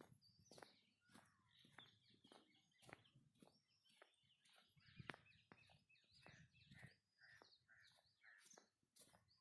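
Faint outdoor ambience: scattered short bird chirps mixed with many small clicks.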